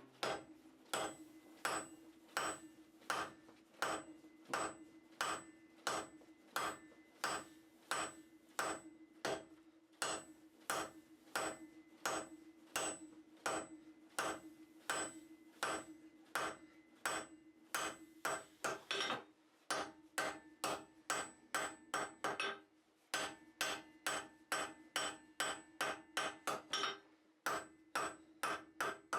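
Blacksmith's hand hammer striking hot steel on an anvil while forging tongs: steady, even blows about two a second, each ringing, with the anvil's ring sustained underneath. The blows pause briefly about three quarters of the way through, then resume.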